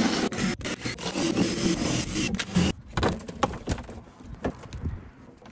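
Cordless drill running under load, drilling out the rivets of an aluminium door liner, then stopping abruptly about halfway through. Scattered knocks and scrapes follow as the panel is worked loose.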